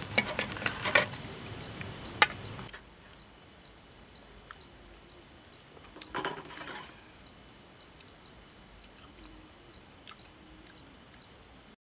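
A few sharp clicks and knocks in the first couple of seconds, then an insect chirping steadily with short high chirps, broken by a brief rustle about six seconds in; the sound cuts off abruptly just before the end.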